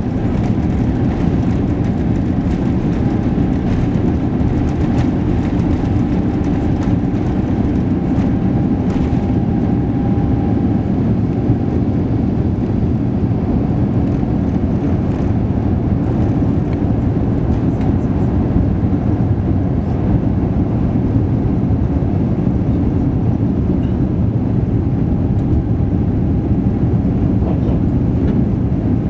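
Cabin noise of an Airbus A350-900 during its takeoff roll and liftoff: the steady rumble of its Rolls-Royce Trent XWB engines at reduced takeoff thrust, heard from inside the cabin.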